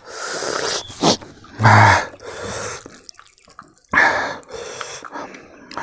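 A man eating by hand, with loud breaths and wet mouth clicks between mouthfuls. The sounds come in uneven bursts, the loudest about two seconds in.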